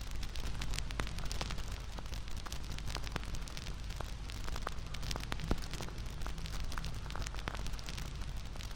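Campfire crackling: a steady hiss and low rumble of burning wood with many irregular sharp pops and snaps.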